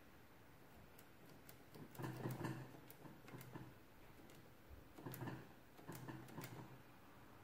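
Metal key stems of a Victor manual adding machine pressed and released by hand: light metallic clicks from about a second in, with three clusters of heavier clunks from the mechanism.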